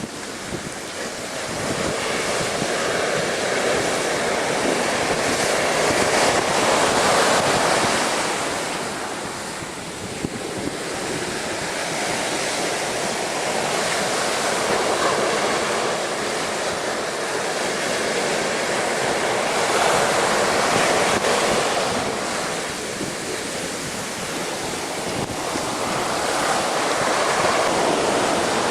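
Storm waves surging and breaking against a sea wall, swelling and easing every several seconds, with strong wind buffeting the microphone.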